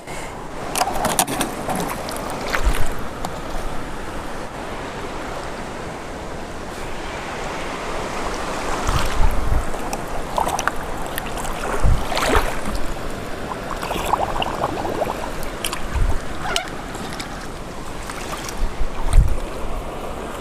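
River water running steadily, with scattered splashes, knocks and low thumps.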